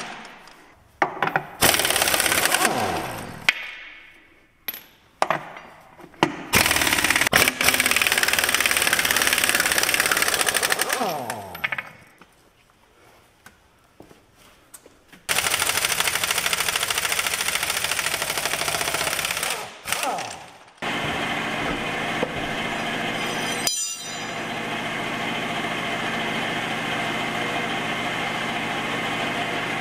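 Impact wrench hammering on the lug nuts of a military truck's Budd-style wheel, in several long rattling bursts with pauses between. In the last third a steady engine-like running sound takes over.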